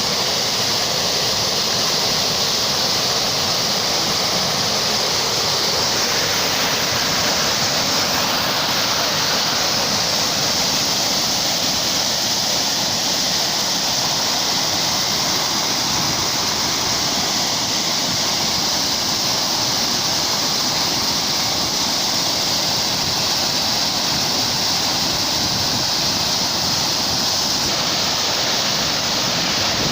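Floodwater rushing, a loud, steady wash of noise with no let-up.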